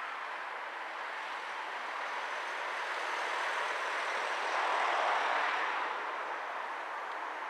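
Steady hiss of road traffic, swelling louder about five seconds in as a vehicle passes, then easing back.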